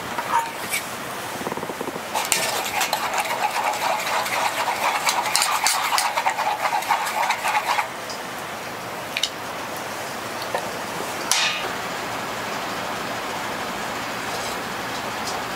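A long metal spoon stirring coffee in a metal camping mug: a quick run of clinks and scrapes for about six seconds, then a few single clinks. A steady hiss continues underneath.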